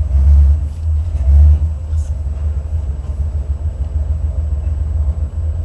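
Low rumble of a Buick 455 V8 car on the move, heard from inside the cabin, swelling twice in the first second and a half and then running steadily.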